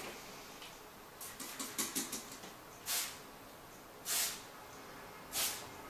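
Hand trigger spray bottle of water squirting in short hissing bursts onto Brusho pigment on paper: a quick run of several squirts between one and two seconds in, then single, slightly longer squirts about three, four and five and a half seconds in.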